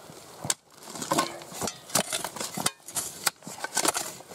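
Digging in stony soil: irregular scrapes and sharp clinks of tools against stones and earth.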